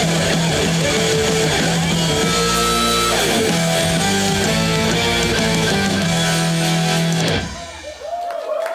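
Guitar-heavy rock music played loud at a live concert, ending abruptly about seven seconds in; as it dies away the audience begins cheering near the end.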